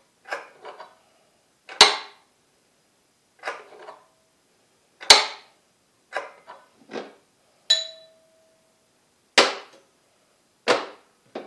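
Sharp metal clacks and knocks of steel magnets and iron pieces being set onto and snapping against the iron pole pieces of a magnet charger, a second or so apart, one just past the middle ringing briefly.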